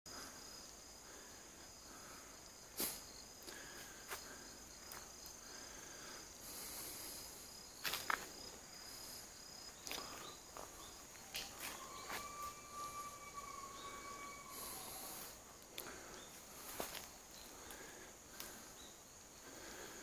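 Insects trilling steadily in woodland undergrowth, a high continuous buzz with a faint pulsing chirp beneath it. Scattered sharp snaps and crunches of dry leaves and twigs underfoot break in, and about twelve seconds in a steady whistle-like tone holds for about three seconds.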